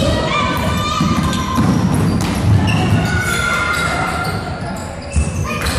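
Basketball game sound on a hardwood gym court: the ball bouncing, sneakers squeaking in long high squeals, and the thud of running feet, echoing in the hall.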